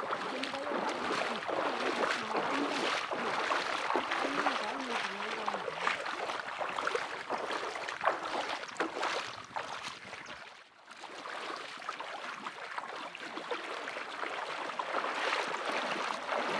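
Water splashing and sloshing as several people wade in shallow water and scoop it into plastic jerrycans, with faint voices in the background during the first half. The sound drops away briefly just past the middle.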